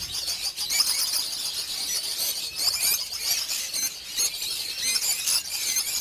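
Many caged lovebirds chattering together: a dense, continuous chorus of high-pitched chirps and squeaks.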